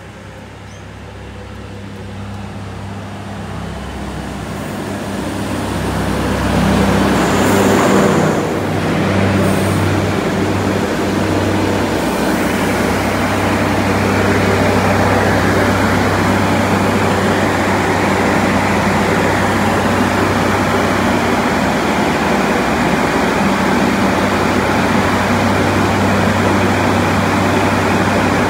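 A diesel railcar approaches and passes close beneath, growing louder to a peak about eight seconds in. It then stands below with its engine and roof fans humming steadily.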